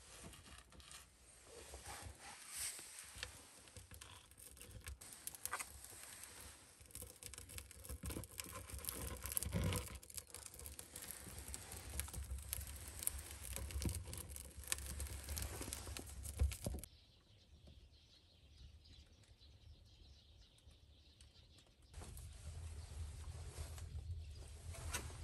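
Kindling crackling and snapping as it catches in the iron firebox of a stone fireplace, with scattered clicks and knocks. The crackling stops suddenly about 17 seconds in, leaving a quieter stretch and then a soft low background.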